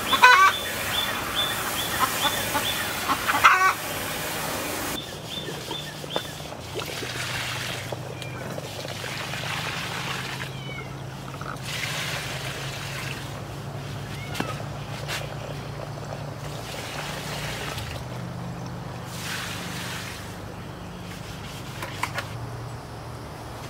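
Water mixed with fish-emulsion fertilizer being poured from a plastic bucket onto plants, in several pours that splash and trickle into the soil. Bird calls are heard in the first few seconds, and a low steady hum runs underneath.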